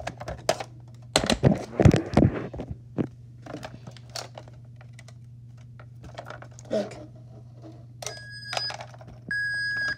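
Clicks and knocks of a 1994 Hess plastic toy truck being handled. Near the end its electronic backing-up sound starts: a high beep that repeats, one of them held longer.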